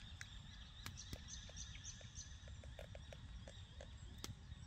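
Faint outdoor ambience: scattered soft bird chirps over a steady high hiss and a low wind rumble, with a few sharp clicks, one about a second in and one near the end.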